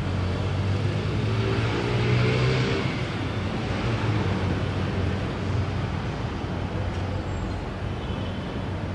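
Distant city traffic: a steady low rumble of vehicle engines, with one engine note rising briefly between one and three seconds in.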